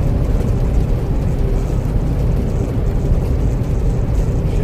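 Steady low rumble of a semi truck on the road, engine and road noise running evenly, with an empty trailer behind.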